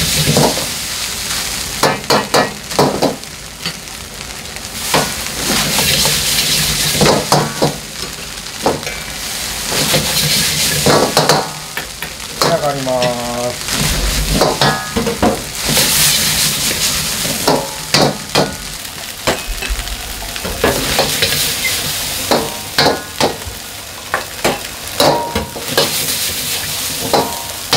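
Fried rice stir-frying in a wok: a metal ladle strikes and scrapes the wok again and again with ringing clanks, over a sizzle that swells every few seconds as the rice is tossed.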